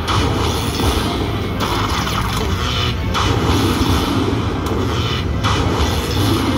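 Lightning Link slot machine tallying its bonus win, playing electronic music and effects that step about every second and a half as each coin's value is added to the win meter.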